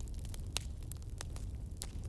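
Fire crackling: scattered sharp pops and snaps over a steady low rumble of burning.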